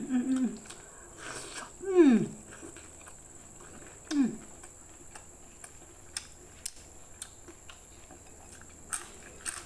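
A person chewing food with the mouth close to the microphone, with two falling 'mmm' hums of enjoyment at about two and four seconds in. Small mouth clicks follow through the rest of the chewing.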